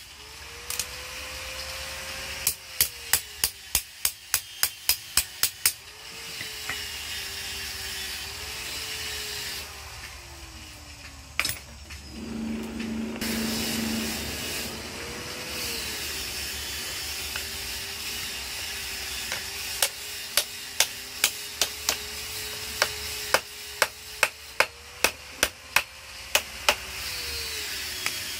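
Hand hammer striking a red-hot steel grass-cutting blade on an anvil to bend it, in runs of quick blows about three a second, early and again in the latter half. In the long gap between, only a steady rushing noise is heard.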